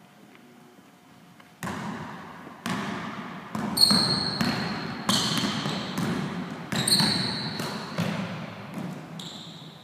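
A basketball being dribbled on a gym floor as a player runs a cone ball-handling drill. The sharp bounces start about one and a half seconds in and come roughly once a second, echoing in the hall, with a few short high squeaks mixed in.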